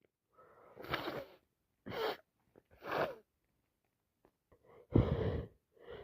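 A woman with a heavy cold takes three short gasping breaths about a second apart, then sneezes about five seconds in.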